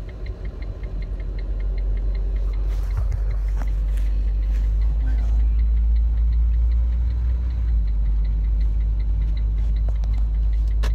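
Steady low rumble of a vehicle's engine running, heard inside the cab. For the first few seconds a quick, even ticking sounds, about three or four ticks a second. A few knocks of handling come around the middle.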